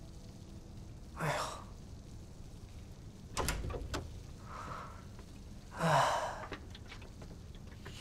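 A man sighing twice, a short breathy one about a second in and a longer, louder one about six seconds in. Between them, around three and a half seconds, come a few sharp clicks and a low thud.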